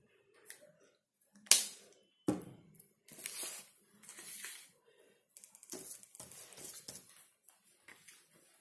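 Hands handling a small jar of chalk paint and a clear glass dish: a sharp click about one and a half seconds in, a knock just after, then rustling, scraping and light clinks.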